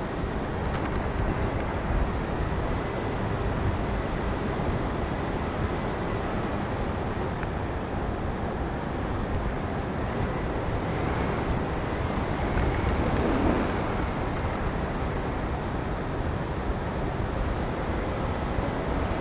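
Steady rush of wind across the microphone of a paraglider in flight, an even noise heaviest in the low range.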